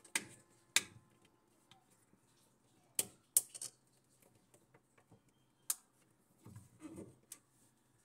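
Sharp plastic clicks and taps from a small screwdriver prying at a refrigerator door-light push switch, about six separate clicks spread unevenly, with a softer handling rustle near the end. The blade is releasing the switch's plastic locking tabs so it can be pulled out of the door frame.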